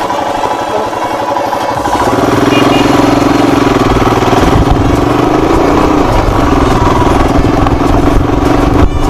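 Royal Enfield Himalayan's single-cylinder engine idling with a slow, even thump, then rising in pitch and level about two seconds in as the motorcycle pulls away and runs on steadily.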